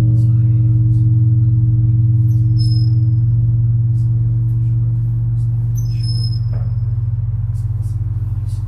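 Tsar Bell's bronze body humming after being struck: a loud, low, steady tone that slowly fades, its higher overtones dying away first. Birds chirp briefly several times.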